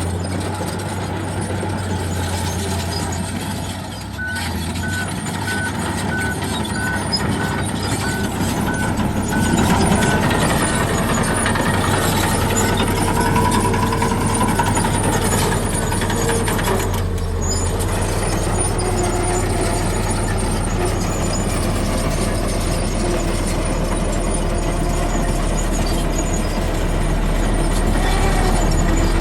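Komatsu heavy construction machine running with a steady diesel engine hum, its backup alarm beeping about twice a second for several seconds near the start.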